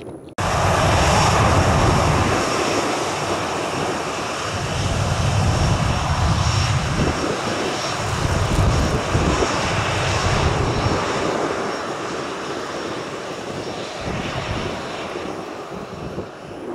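Airliner jet engines at takeoff power on departure: a loud, steady engine noise with a deep rumble that swells and eases. It cuts in abruptly just after the start.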